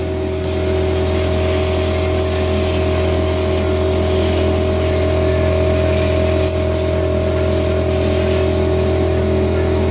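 Vacuum blower of a 3D printer's powder-removal station running steadily: a constant low hum with two steady tones and a wide hiss over them. Brief surges of higher hiss come and go, typical of loose powder being blown or sucked off a fresh sandstone print.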